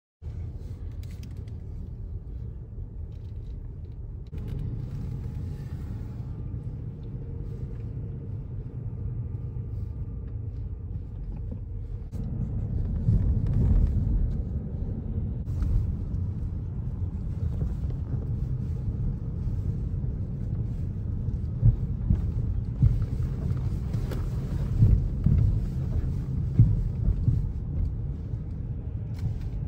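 Road and engine noise heard inside a moving car's cabin: a steady low rumble that grows louder about halfway through, with a few short thumps in the last third.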